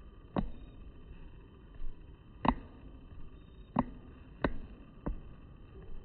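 Five sharp, irregularly spaced taps or knocks over a faint steady hiss.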